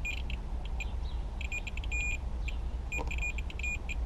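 Multimeter continuity tester beeping in short, broken chirps as the probes make and break contact, with one longer beep about two seconds in: the beeps signal continuity through a freshly spliced wiring-harness wire. A steady low rumble sits underneath.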